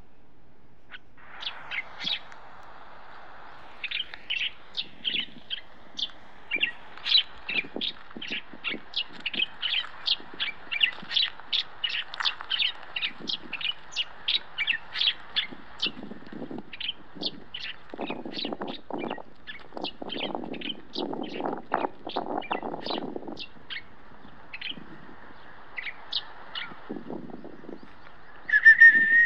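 A bird chirping rapidly and repeatedly, about two or three short high chirps a second, over softer noise. Near the end comes a brief, louder whistle-like tone that falls away.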